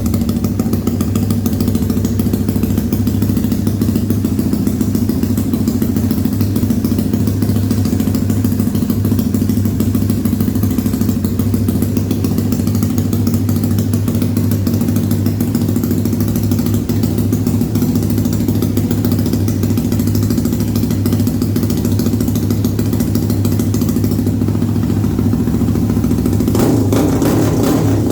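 Single-cylinder four-stroke engine of a Honda Twister-based drag-racing prototype, bored out to 485 cc and running on methanol, idling steadily at an even pitch. Its sound gets slightly fuller near the end.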